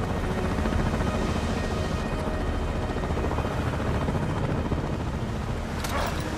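Steady helicopter rotor and engine noise mixed with storm wind and rain while a rescue swimmer and survivor hang on the hoist cable. A short burst of noise comes near the end.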